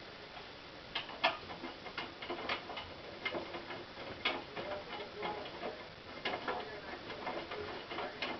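Hotpoint NSWM 843C inverter-motor washing machine in its rinse, giving irregular clicks and taps from about a second in.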